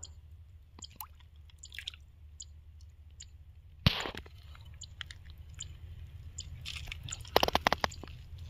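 Faint scattered clicks and wet squishing sounds over a low steady rumble, with one sharp click about four seconds in and a quick run of clicks near the end.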